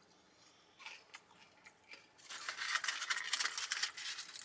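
Rustling and crinkling of fast-food packaging being handled, a dense run of small crackles and clicks starting about two seconds in.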